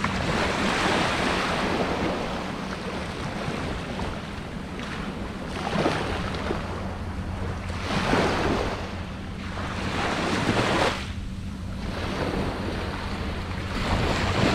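Small surf breaking and washing up the sand at the shoreline, swelling and fading every two or three seconds, with wind buffeting the microphone.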